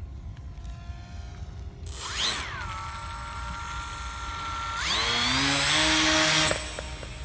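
Twin small brushless electric motors with propellers on an RC model plane whining as the throttle is opened. They spool up about two seconds in, hold steady, rise higher again about five seconds in, then cut off suddenly a second and a half later.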